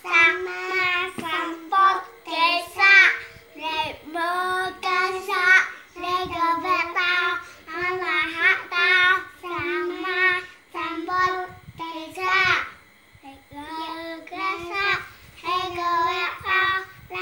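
Young children's voices chanting a bedtime prayer together in a sing-song, held mostly on one steady note and broken into short phrases, with a brief pause about two-thirds of the way through.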